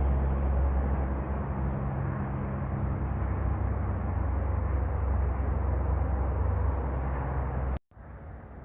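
A steady low hum over a background of outdoor noise that cuts off abruptly near the end.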